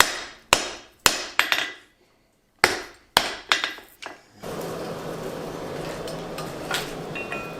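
Hand hammer blows on hot steel over an anvil while forging an axe form: about ten sharp, ringing strikes in two runs separated by a short pause. About halfway through the hammering stops and a steady rushing noise with a low hum takes over.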